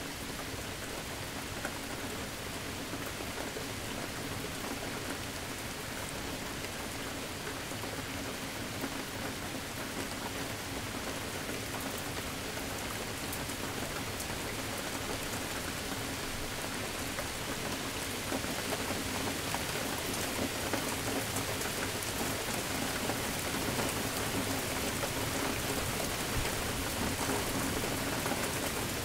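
Steady rain falling, with many small drop ticks over a constant hiss, growing a little heavier in the second half.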